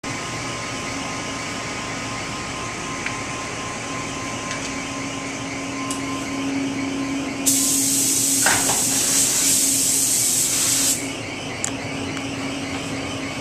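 Paint booth ventilation running steadily with a low hum. A little past halfway, a gravity-feed paint spray gun hisses loudly for about three and a half seconds, then cuts off.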